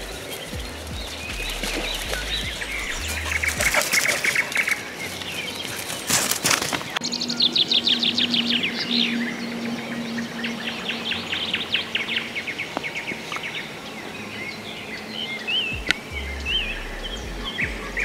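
Several songbirds singing in a forest after rain: fast repeated trills and warbling phrases, with a low steady hum in the middle.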